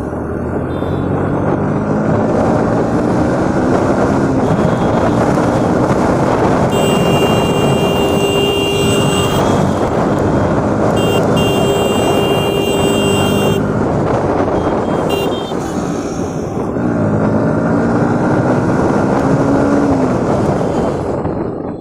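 Single-cylinder Bajaj Pulsar motorcycle engine accelerating hard, its pitch rising through the gears in three pulls, over a heavy rush of wind and road noise. A high steady whine comes and goes in the middle.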